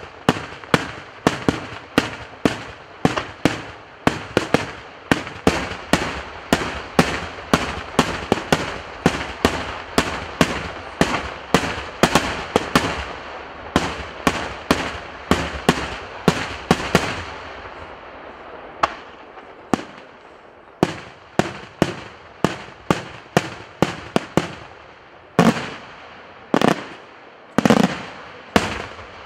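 Daytime fireworks display: aerial shells bursting in a rapid string of sharp bangs, about two a second, with crackling between them. About two-thirds of the way through the bangs thin out to single reports roughly once a second, with a few louder ones near the end.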